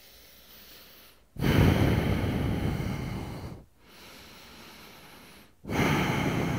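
A person breathing deeply and audibly through the nose while holding downward dog: two long breaths of about two seconds each, the second starting near the end.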